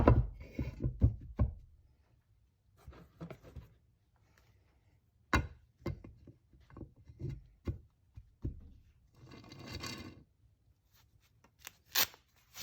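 Scattered knocks and clunks of parts being handled as a heated bearing is slipped onto a crankshaft. A quick run of knocks comes at the start, then single knocks spaced out, with a short scraping rub about two-thirds of the way in.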